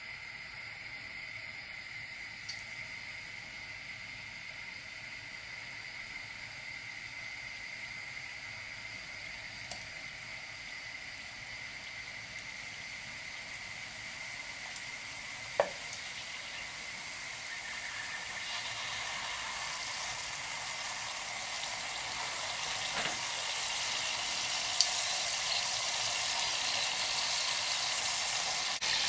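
Flour-and-egg dough pieces deep-frying in hot oil in a stainless steel saucepan: a steady sizzle that grows louder as it goes on, with a single sharp tap about halfway through.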